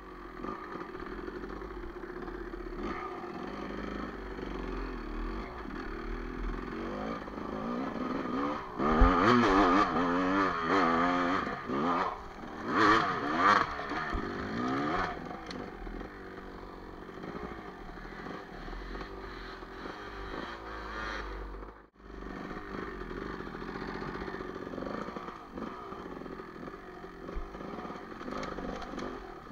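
Enduro dirt bike engine running and revving up and down as the bike rides off-road. The revs are loudest in bursts from about nine to fifteen seconds in, with a brief break about twenty-two seconds in.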